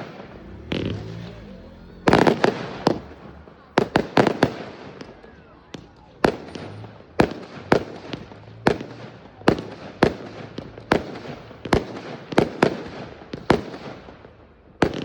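Fireworks exploding: a long run of sharp bangs, a quick cluster about two seconds in, then bangs coming roughly once a second, each trailing off in a fading crackle.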